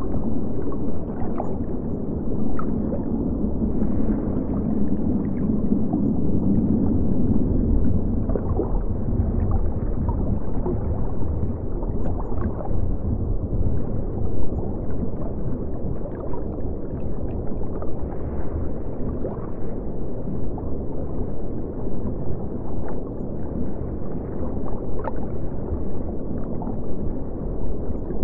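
Aquarium air bubbles streaming up through the water: a steady, muffled gurgle with many small pops scattered through it.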